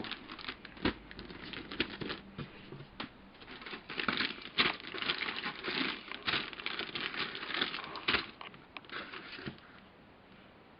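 Plastic model kit parts being handled: crinkling with many light, irregular clicks and taps, quieter near the end.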